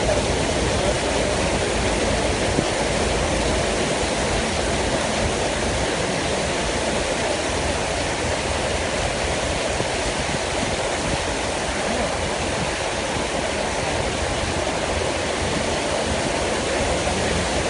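Floodwater rushing in a steady, unbroken roar of water noise.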